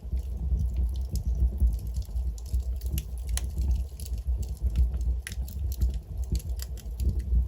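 Wood logs burning in a fireplace, crackling with frequent irregular sharp pops over a low, steady rumble of the flames.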